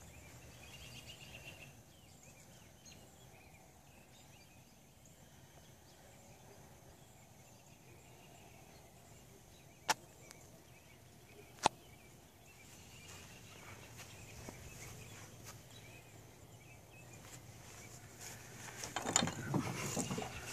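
Faint outdoor ambience with two sharp clicks about ten and twelve seconds in, then a louder stretch of rustling and shuffling near the end as the camera is moved.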